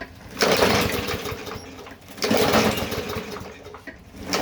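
Toro lawn mower engine being cranked three times, about two seconds apart, each time turning over briefly without catching: it will not start even with brake cleaner sprayed in, and the owner suspects the carburetor.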